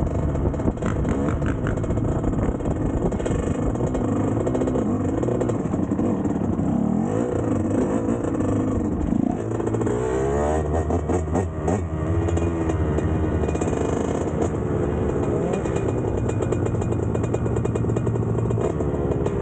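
125 cc two-stroke dirt bike engine revving up and down repeatedly under throttle while riding and wheelieing, its pitch rising and falling many times, then holding a steadier drone through the later part.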